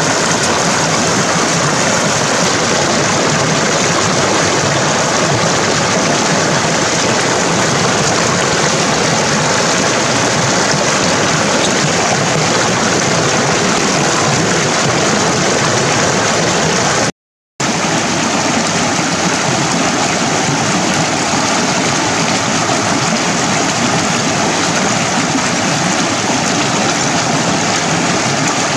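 Rocky stream rushing and splashing over boulders in small cascades, a steady loud rush. The sound cuts out for a fraction of a second about 17 seconds in, then resumes.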